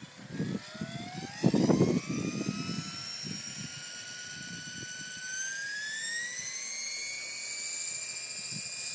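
Align T-Rex 550E electric RC helicopter spooling up on the ground: the whine of its brushless motor and drive gears rises steadily, levels off, then climbs again about five seconds in and settles at a higher, steady pitch as the rotor comes up to head speed. Low rumbling buffets are mixed in during the first two seconds, the loudest about one and a half seconds in.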